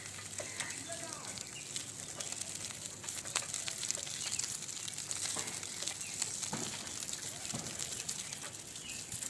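Windy outdoor ambience: a steady hiss with many small crackles through it, and a few faint chirps.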